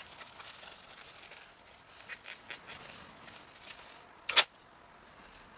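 Small metal turbocharger parts, spacers and bearings, being handled: a scatter of faint clicks and light scrapes, then one sharp click about four seconds in as a part is set down.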